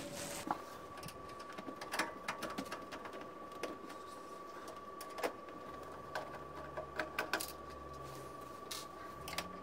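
Irregular small clicks and scrapes of a hand screwdriver working the lid screws on the front edge of an egg incubator, the tip catching and turning in the screw heads.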